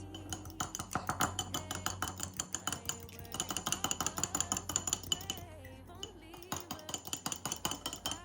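A mixing utensil beating rapidly against a mixing bowl, with quick repeated clinks and two brief pauses, as a batter is mixed by hand. Faint background music underneath.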